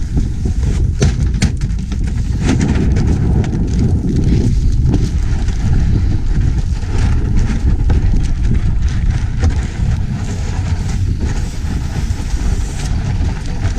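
Wind buffeting the camera's microphone: a loud, steady, low rumble with scattered small clicks.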